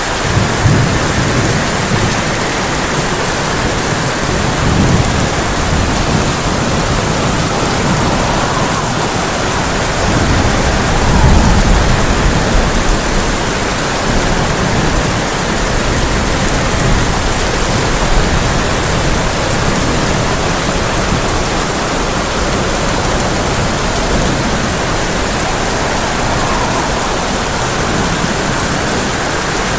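Heavy rain hitting a tin roof in a steady hiss, with low rolls of thunder rumbling under it several times, the loudest about a third of the way in.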